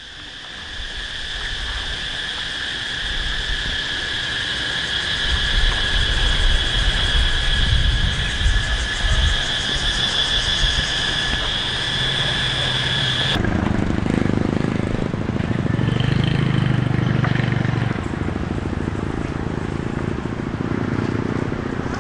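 Small single-cylinder two-stroke engine of a gas-powered earth auger running steadily, with a high-pitched drone over it. About 13 seconds in the drone cuts off abruptly and a lower engine note takes over.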